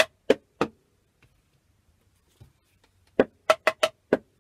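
Hand-struck homemade scrap drums made of balloon stretched over cardboard tube and plastic tubs: three quick taps, a pause, then a fast run of five taps near the end, several with a short pitched ring.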